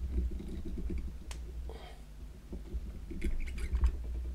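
Hand handling an M4 tap in a T-handle tap wrench against a brass padlock's pin chamber: small metal clicks and clinks, one about a second in and several close together near the end, over a low handling rumble.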